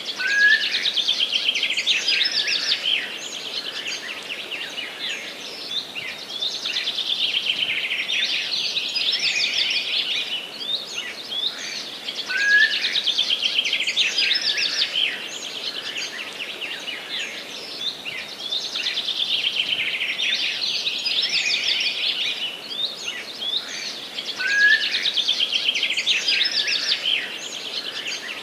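Forest songbirds singing: high, rapid trilled song phrases of about three seconds each, repeating every six seconds or so, with an occasional short rising chirp, over a faint steady background hiss.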